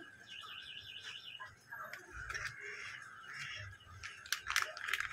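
Small clear plastic parts bag crinkling and rustling as it is handled, loudest about four and a half seconds in, with light clicks and knocks of the phone holder's plastic parts before it. A steady high tone runs underneath.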